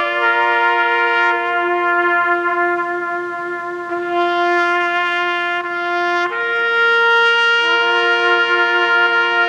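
Two trumpets playing a slow duet of long held notes. One part holds a low note for about six seconds while the other moves above it, and both change notes about six seconds in.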